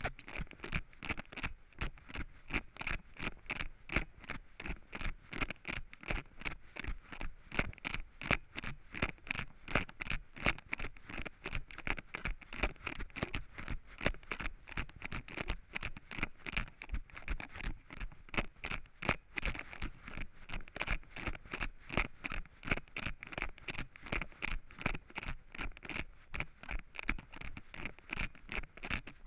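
Running footsteps on a trail covered in dry fallen leaves, a quick, even rhythm of footfalls with the leaves crunching and scuffing underfoot.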